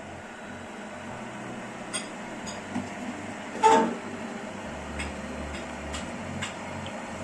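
Siemens iQ500 front-loading washing machine running its drum-cleaning program: a steady rushing noise with a few light clicks and one loud knock about three and a half seconds in.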